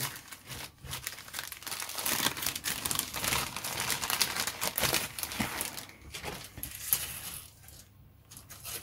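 Clear plastic bag crinkling and rustling as a plastic model-kit sprue is handled and slid out of it, dying down near the end.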